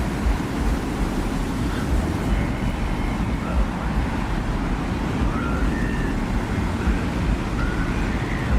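Steady desert wind ambience: a deep, constant rumbling wind, with faint short whistling tones drifting in and out above it.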